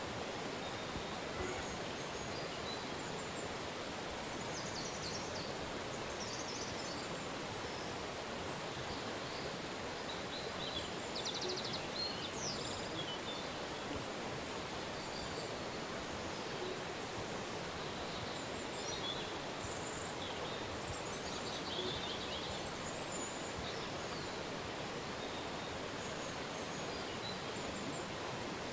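A river flowing steadily, with birds chirping and trilling on and off over it.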